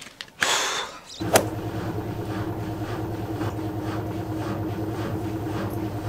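A short whoosh, then a sharp click about a second and a half in, followed by a steady low machine hum with an even pulse.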